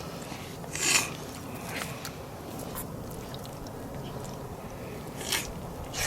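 A few short rasping scrapes, the loudest about a second in, over steady low background noise.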